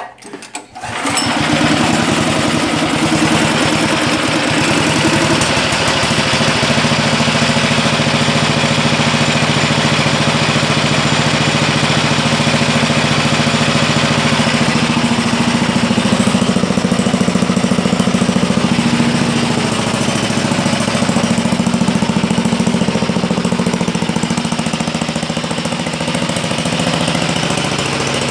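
The Honda GX340 single-cylinder engine of a Sears Suburban garden tractor is pull-started cold on choke. It catches about a second in and runs steadily, its note shifting slightly about 15 seconds in.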